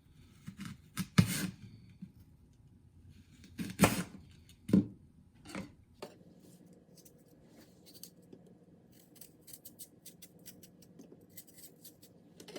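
Several short rustling swishes from household objects being handled, then a run of faint light clicks and taps over a low steady hum.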